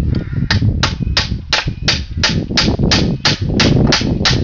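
Ratchet wrench clicking in quick, even strokes, about three a second, as it turns out a long 19 mm bolt.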